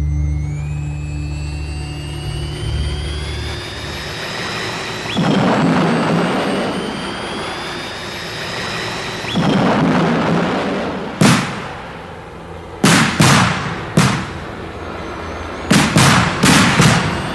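War sound effects: a jet aircraft's engine whine rising in pitch twice, each time breaking into a rushing boom. A string of sharp blasts follows in the second half, some close together in quick succession.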